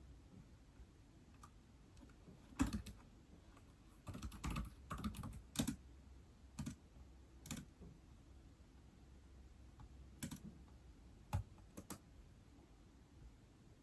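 Faint keyboard typing on an iPad: scattered single keystrokes with a short flurry of several keys about four to six seconds in.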